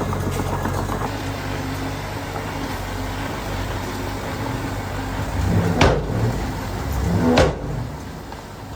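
Diesel engine of heavy earthmoving machinery running steadily, with two sharp knocks in the second half about a second and a half apart.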